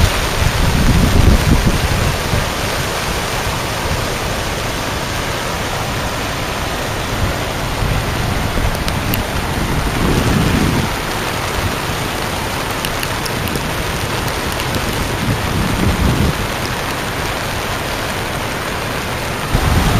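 Steady rushing of floodwater from an overflowing stream pouring across a yard and driveway, with a few short low rumbles of wind on the microphone.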